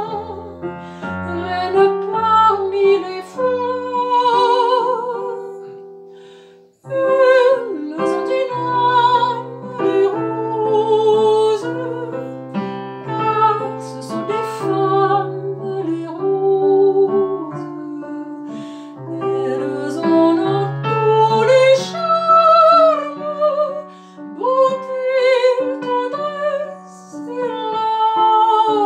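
A woman singing a French song in a classical style, with vibrato, over piano accompaniment. The music breaks off briefly about seven seconds in, then resumes.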